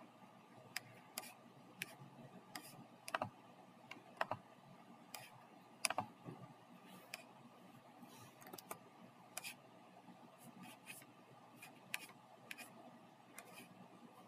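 Scattered, irregular clicks of a computer mouse and keyboard over a faint steady background.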